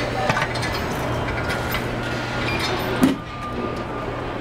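Steady factory-floor hum and machinery noise, with light clicks and clatter of metal parts being handled at an assembly station and one sharp thump about three seconds in.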